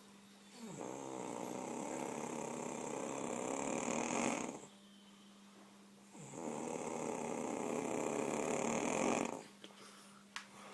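A woman snoring in her sleep: two long snores, each a few seconds, swelling louder and then cutting off sharply, with a short quiet pause between them.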